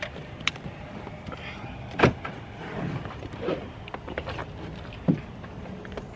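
Getting out of an SUV: a latch click, then a car door shutting with a loud knock about two seconds in, and another thump about five seconds in, with bags and clothing rustling in between.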